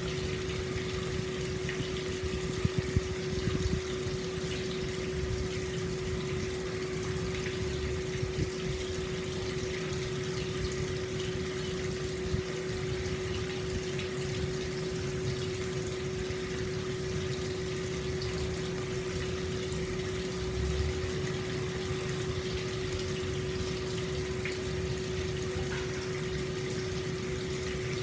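Hot spring water pouring steadily into an open-air stone bath, a continuous splashing rush with a steady low hum under it and a few slightly louder splashes now and then.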